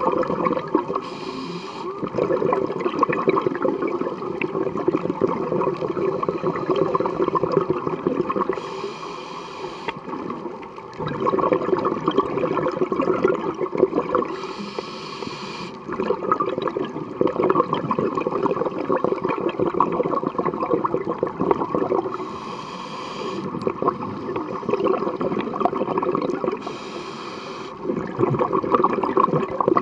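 Scuba diver breathing through a regulator underwater: five short hissing inhales, each followed by a long burbling rush of exhaled bubbles.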